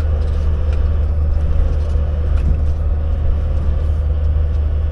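Semi-truck's diesel engine running at low speed, a steady low drone heard from inside the cab.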